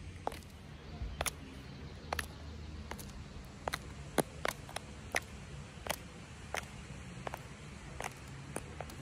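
Footsteps of So Kate stiletto high heels with metal heel tips on stone paving: sharp, high clicks at a steady walking pace, a little under two a second.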